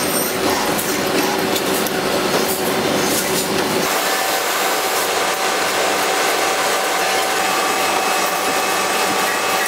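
Bench tapping machines running, threading holes in aluminium rack rail and enclosure extrusion: a steady mechanical noise that changes about four seconds in to a different machine, with a steady whine of several tones.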